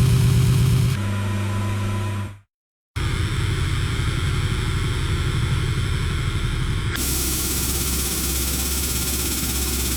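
Diesel ship engine idling with a steady low hum and a lot of hiss. Several takes are spliced together: the sound changes abruptly about a second in and again near the 7-second mark, with a half-second of silence between two of them.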